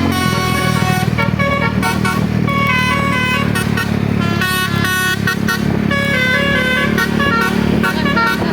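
Basuri telolet bus horn playing a quick melody of short, stepping tones that change pitch several times a second, over the bus engine's steady rumble.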